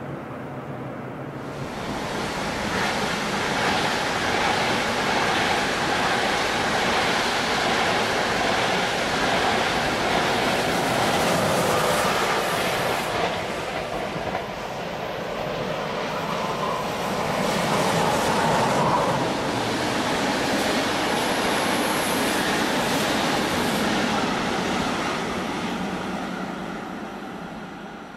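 Electric train passing on the rails: a steady rumble of wheels on track that swells about two seconds in, holds, and fades away near the end.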